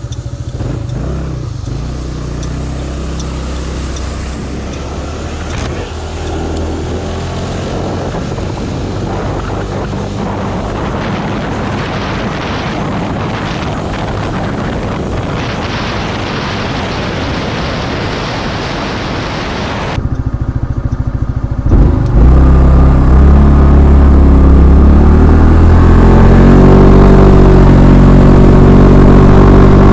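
Kymco KRV scooter's engine and exhaust while riding. For the first two-thirds it sits under heavy wind rush on the microphone. About 20 s in the sound changes to a louder, clearer engine note with little wind, which rises in pitch as the scooter accelerates.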